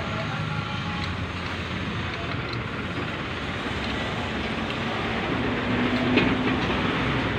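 Steady rumble of passing vehicle traffic, with a low drone rising out of it about five seconds in and a light click near the end.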